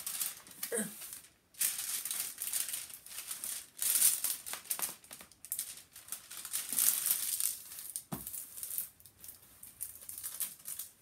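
Crinkling and rustling of the clear plastic film on a diamond painting canvas as it is handled and smoothed flat by hand, coming in irregular bursts with short pauses.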